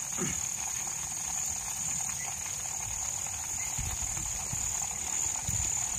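Crickets chirring in one steady high-pitched trill, with the crinkle of a paper wrapper as flatbreads are handled.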